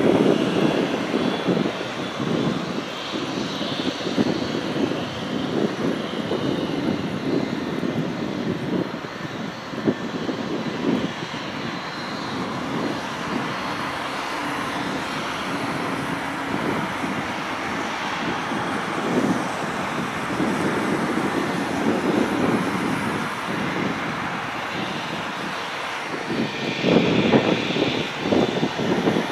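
Airbus A380 climbing away after takeoff: a steady rumble from its four Engine Alliance GP7200 turbofans at climb power, with a fainter hiss above it, swelling louder briefly near the end.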